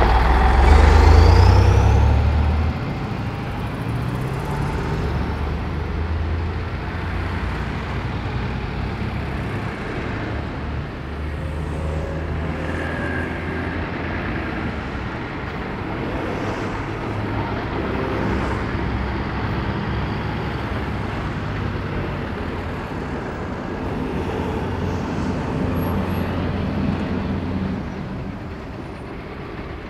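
A loaded MAZ tipper lorry's diesel engine pulls away with a loud low rumble that fades after about two seconds. Steady road traffic follows, with cars and a minibus passing by.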